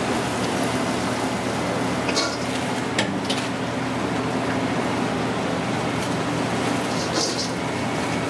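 Steady hum of kitchen machinery, with a few short clicks and brief rustles of a plastic tortilla package being handled, about two seconds in and again near the end.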